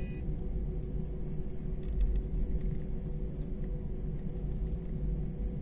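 Jet airliner cabin noise while taxiing after landing: a steady low rumble with a steady hum, and a few faint clicks about two seconds in.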